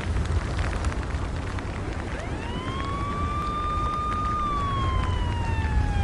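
An emergency vehicle's siren wails: about two seconds in it rises quickly, holds a high pitch, then slowly falls, sounding the alarm as the pyroclastic flow comes down. Under it runs a steady low rumble with scattered crackles.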